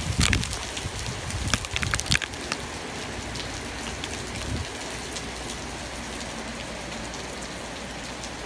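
Heavy hurricane rain with wind as the back eyewall of Hurricane Maria nears: a steady hiss of rain. In the first two seconds or so, gusts buffet the microphone with low rumbles and a few sharp ticks, then the rain settles into a steady wash.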